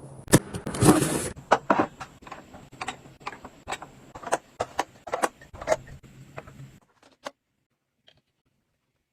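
Irregular clicks and light knocks of small objects being handled, about twenty in all, with a faint steady hum beneath; they stop about seven seconds in.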